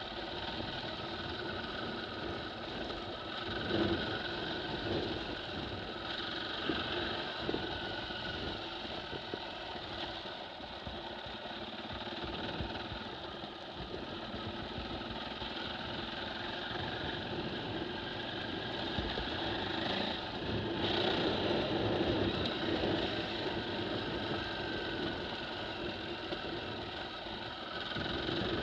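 KTM 450 EXC enduro motorcycle's single-cylinder four-stroke engine running while riding over a rough stony track. It grows louder about twenty seconds in.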